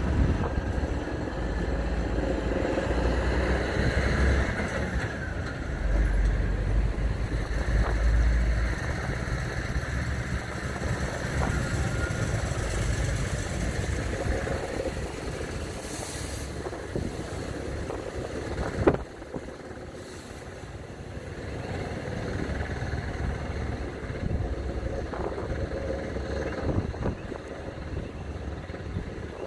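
Steady outdoor background rumble, heaviest in the first third, with one sharp knock about two-thirds of the way through.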